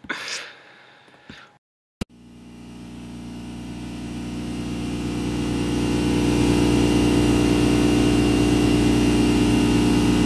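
A steady electronic drone made of several held tones. It starts with a click about two seconds in, swells over the next few seconds and then holds level.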